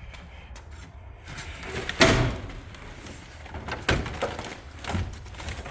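A loud, sharp thump about two seconds in, then a few lighter knocks and clicks.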